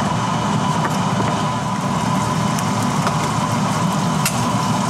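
Kitchen range hood exhaust fan running steadily, a low drone with a faint whine, and a light tap about four seconds in as an egg is cracked over the frying pan.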